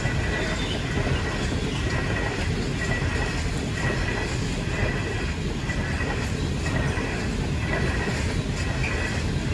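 Stainless-steel passenger carriages rolling past on the rails: a steady rumble of wheels on track.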